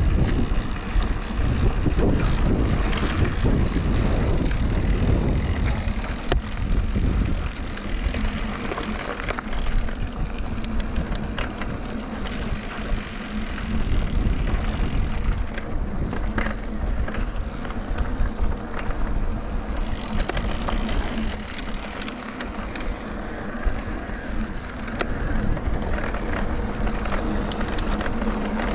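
Mountain bike riding a rough trail: tyre noise and the bike's rattle, with wind rumbling on the microphone.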